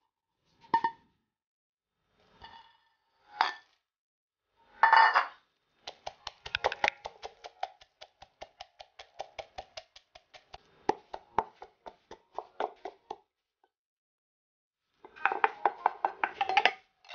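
A few separate knocks as garlic, coriander root and white peppercorns go into a mortar, then a wooden pestle pounding them in quick, even strokes, several a second, for about seven seconds. Near the end, a metal spoon scrapes the pounded paste around the mortar.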